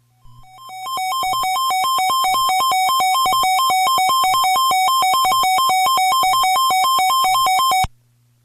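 Electronic emergency-alert attention tone switching rapidly between a high and a low pitch, about four times a second. It swells in over the first second and cuts off abruptly near the end. It marks the start of a broadcast emergency alert, here a flash flood warning.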